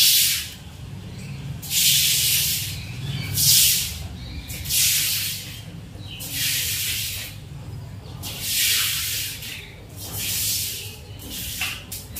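A broom swept in repeated strokes across a wet floor, pushing water along. Each stroke is a hissing swish, about one every one and a half seconds.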